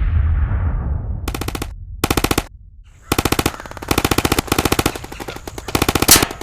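Machine-gun fire sound effect in short rapid bursts with brief pauses between them, after the low rumble of a blast dies away in the first second.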